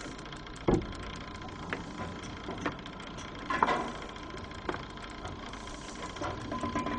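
A steady mechanical hum with short clanks and clicks about once a second, the loudest near the start and halfway through.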